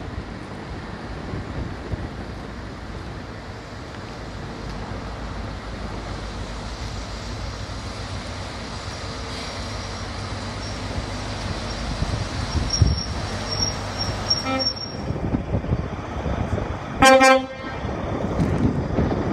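Diesel High Speed Train power car approaching, its engine rumble slowly growing louder, with a brief high squeal partway through. Near the end the train sounds one short horn toot, the loudest sound.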